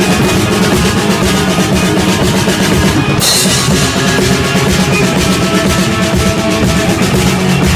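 Rock band playing an instrumental passage, with a full drum kit driving it and a cymbal crash about three seconds in.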